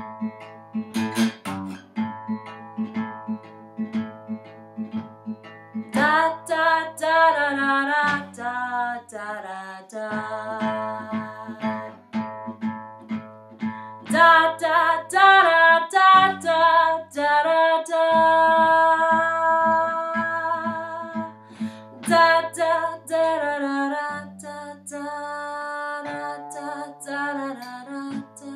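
A woman singing a slow blues song while playing a Fender acoustic guitar, picking a steady repeating pattern.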